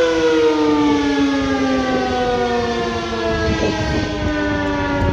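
ACA Penetrator-50 outdoor warning siren, with a 50 hp three-phase motor and an 8/12-port chopper, sounding the Attack signal. Its loud dual-tone wail slides slowly down in pitch.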